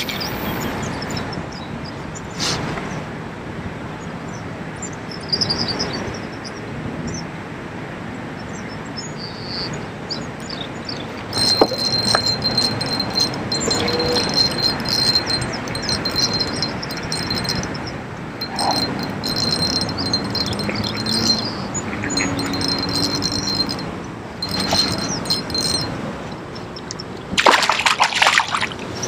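Lakeside ambience with birds chirping, then near the end a hooked bass splashing and thrashing at the water's surface beside a kayak.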